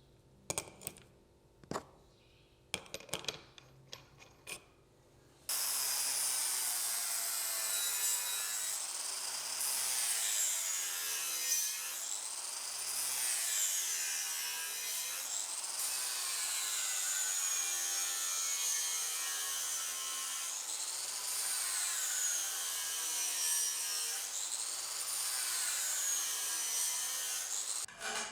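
A few light clicks and scrapes, then from about five seconds in a steady abrasive grinding of the rusty steel blade by a power tool. Its pitch rises and falls every three to four seconds as the work goes back and forth.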